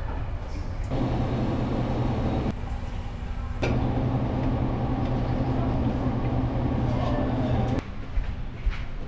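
Steady low mechanical rumble with a hum in it, breaking off abruptly once and stopping suddenly near the end.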